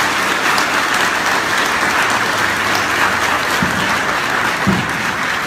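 Audience applauding steadily after a talk ends.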